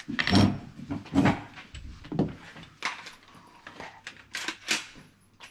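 A series of short knocks and clicks at irregular intervals, about eight in all, some with a dull low thud.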